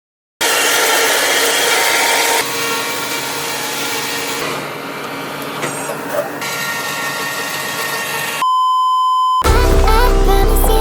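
Farm machinery running with a loud, noisy sound, cut off abruptly in several segments. It is followed by a steady electronic beep lasting about a second, then music with a heavy bass beat begins.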